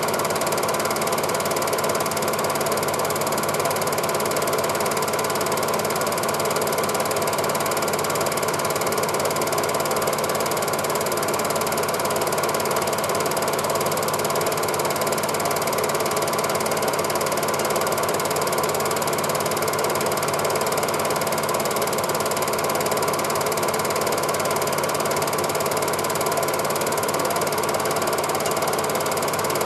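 Cine film projector running: a steady, fast mechanical clatter of the shutter and film-advance claw that does not change.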